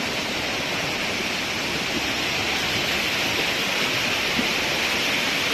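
Floodwater rushing down a street in a fast torrent, a steady, unbroken rush of water.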